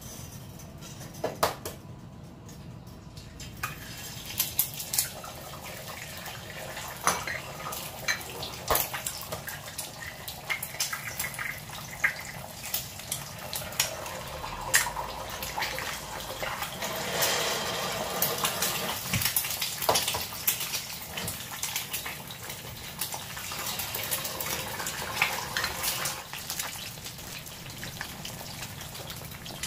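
Eggs frying in hot oil in a cast iron skillet: a sizzle that grows louder from a few seconds in, with sharp taps now and then as eggshells are cracked and the eggs go into the pan.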